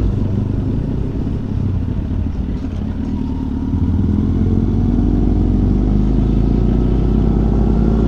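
Kawasaki Z800's 806 cc inline-four engine running as the motorcycle is ridden. The engine note falls away at the start and stays lower and uneven for a few seconds, then comes back steady and stronger from about four seconds in.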